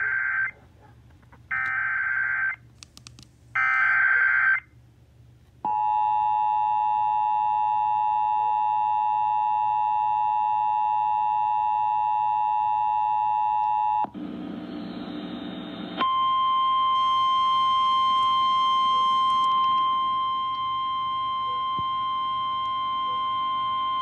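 Emergency Alert System tones on an AM radio broadcast, played through a small Amazon Echo Dot smart speaker. It begins with three short buzzy data bursts of the EAS digital header, a second or so apart. Then comes the steady two-tone attention signal for about eight seconds, a two-second burst of hiss, and a single higher steady alert tone that stops shortly before the end.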